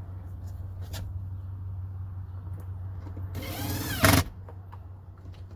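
Cordless power driver spinning a screw into the door panel for about a second, its motor whine climbing in pitch and ending in a sharp loud peak.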